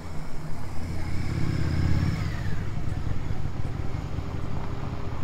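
A motor vehicle passing close by: its engine rumble is loudest about two seconds in, and a high whine drops in pitch as it goes past.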